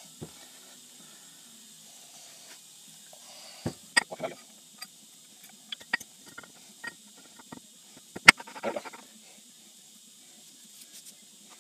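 Scattered small clicks, taps and scrapes of metal 3-jaw lathe chuck parts being handled and greased by hand as the chuck body is put back together, with one sharp click a little past two-thirds of the way through.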